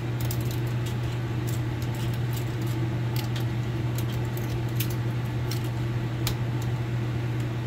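Copper winding wire being cut and pried off a dryer motor stator with a hand tool: scattered sharp metallic clicks and clinks at an irregular pace. A steady low hum runs underneath and is the loudest thing throughout.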